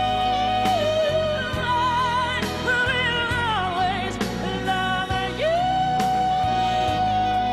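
Music: a song with a singer holding long notes, some with a wavering vibrato, over sustained low notes and drum hits.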